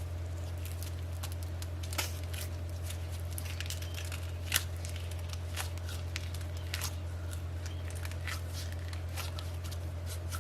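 Hands kneading and squeezing minced pork sausage mixture, giving irregular wet squelches and small clicks, with a louder smack about 2 s in and another about 4.5 s in. A steady low hum runs underneath.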